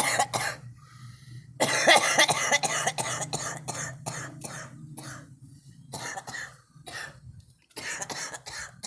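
A girl coughing repeatedly: a short burst of coughs at the start, a long run of rapid coughs from about two seconds in to about five, then a few more coughs near the end.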